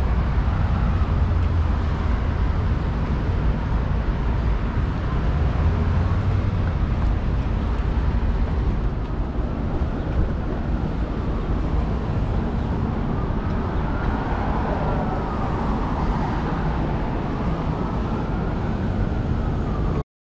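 New York City subway train running: a steady heavy rumble, with a whine that rises and falls several times in the second half.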